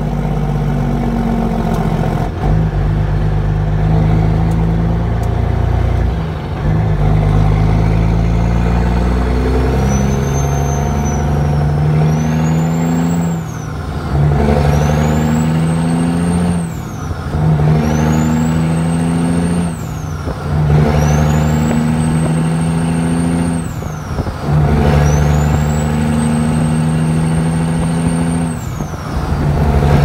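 Semi truck's diesel engine pulling through about five gear changes, heard from inside the cab: in each gear the engine note and a high turbo whistle rise, then both drop off sharply at the shift.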